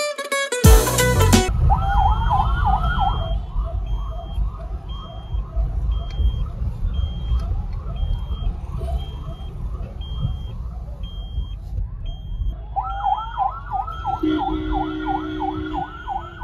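Electronic siren of a convoy escort vehicle: a rising wail that breaks into a rapid up-and-down yelp, with the wail starting again near the end, heard from inside a following car over steady road rumble. A steady low tone sounds for about a second near the end.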